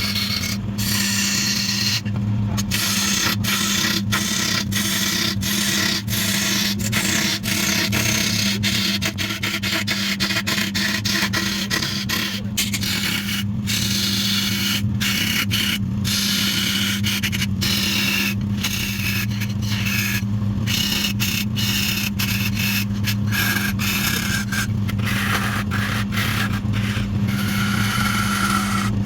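Wood lathe running with a steady motor hum while a tool scrapes against the spinning wood, the scraping breaking off briefly many times.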